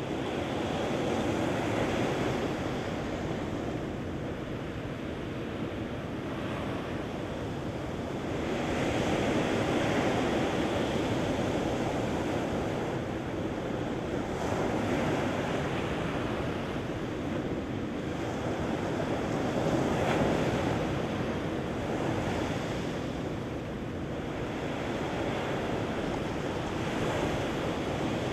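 Ocean surf breaking and washing up a sandy beach: a continuous rushing wash that swells with each incoming wave, every five or six seconds.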